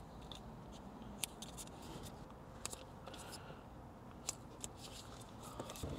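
Faint small ticks and rustles of foam tape being handled and pressed onto a small metal amplifier case.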